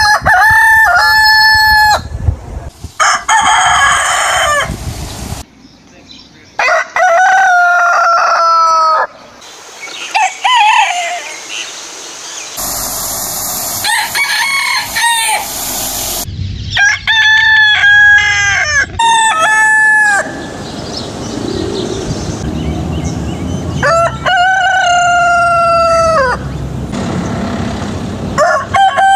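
Roosters crowing, about eight crows in a row from different birds, each one to three seconds long, several ending in a falling drawn-out note. The background changes abruptly between crows, as clips from different recordings are joined one after another.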